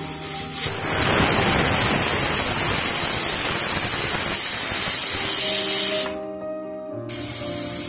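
Pressure cooker whistling: steam hisses loudly out past the weighted valve for about five seconds, starting just under a second in and cutting off about six seconds in, then starts to hiss again faintly near the end. Music plays underneath.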